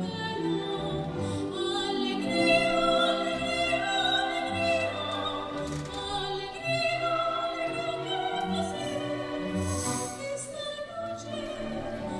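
Vocal ensemble singing classical-style music in long sustained notes with vibrato.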